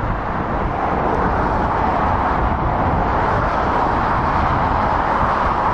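Motorway traffic: the steady rushing of lorry and car tyres and engines on the carriageway, swelling slightly about a second in as vehicles approach, then holding steady.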